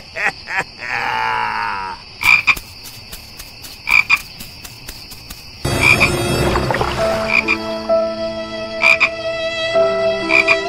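Frogs croaking: short calls repeating about every second and a half, over a steady high-pitched background.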